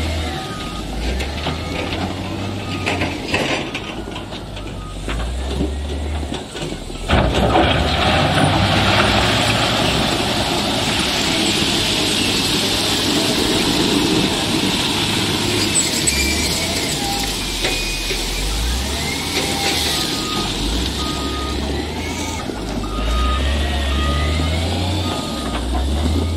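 Caterpillar 950 GC wheel loader's diesel engine running under load as its bucket pushes through crushed basalt stone, with stones grinding and rattling; it gets louder and noisier about seven seconds in. Its reversing alarm beeps at an even pace in the first few seconds and again about three-quarters of the way through.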